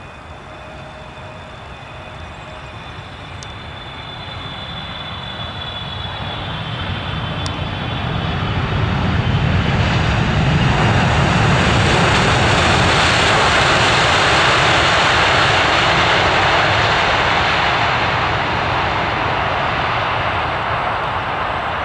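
Boeing 777-300ER with its GE90 turbofans landing. A high engine whine fades during the first few seconds as it touches down, while the jet noise builds to a loud, steady rush as the airliner rolls out past, easing off slightly near the end.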